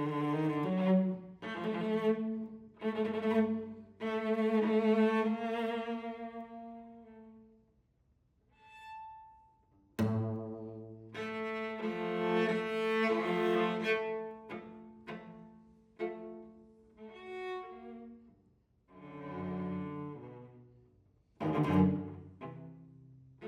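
Solo cello, bowed, playing a contemporary concert piece in short phrases broken by pauses. A faint, thin high note sounds briefly in a lull about nine seconds in, then a sudden loud attack starts the next phrase.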